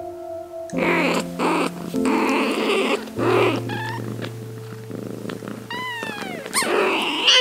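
A British Shorthair mother cat licking and grooming her newborn kittens, purring, with rasping licks through the middle and two short high kitten mews about six seconds in. Soft background music with sustained notes plays underneath.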